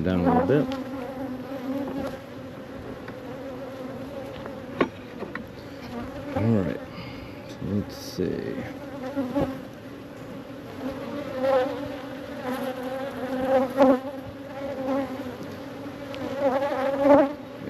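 Honeybees buzzing in a dense crowd around an open hive: a steady hum, with the pitch bending up and down as single bees fly close past. A few light knocks break through now and then.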